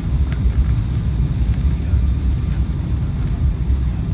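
Jet airliner cabin noise on the landing approach: a steady low rumble of engines and rushing air heard from inside the passenger cabin.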